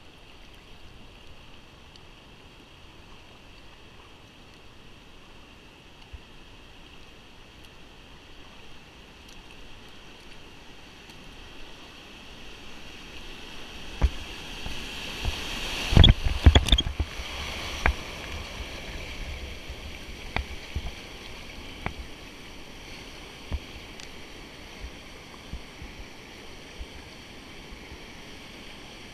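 Rushing river whitewater, growing louder as a kayak nears and runs a rapid. About halfway through comes a cluster of sharp splashes and knocks as the boat drops through, followed by a steady rush with scattered paddle splashes.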